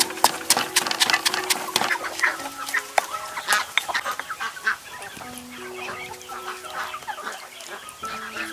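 Stone pestle pounding in a stone mortar, quick strikes about three to four a second, slowing after about two seconds, with chickens clucking throughout.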